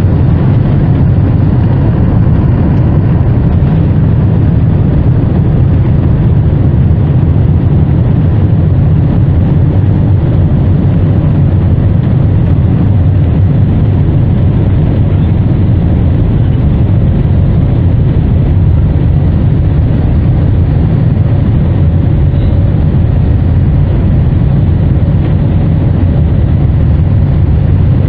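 Steady jet-engine noise and low rumble inside the cabin of an Airbus A321-231 with IAE V2500 turbofans, as the airliner rolls along the ground, with a faint whine held at an even pitch.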